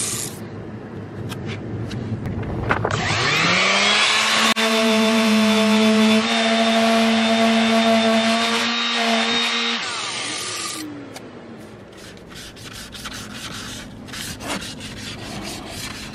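Electric detail sander sanding a fiberglass cap rail. It winds up about three seconds in and runs at a steady pitched whine, then is switched off about ten seconds in and winds down. Softer scratchy rubbing and light clicks follow.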